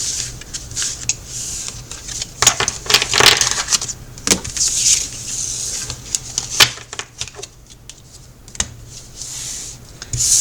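A deck of tarot cards being shuffled and handled by hand: a run of irregular sharp clicks and short papery swishes.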